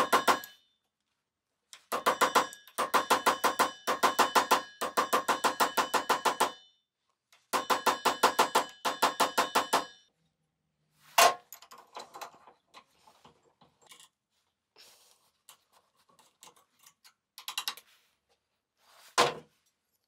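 Rapid, evenly spaced hammer taps on a copper rod against the steel vise, each tap ringing, in runs with short pauses; they stop about halfway. Then comes quiet handling clatter, with a single clank a little after the taps stop and another near the end.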